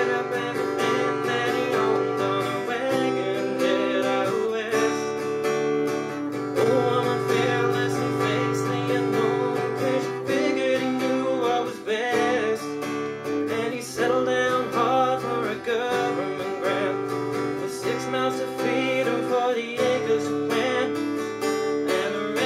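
Acoustic guitar strummed in a steady rhythm, chords ringing continuously.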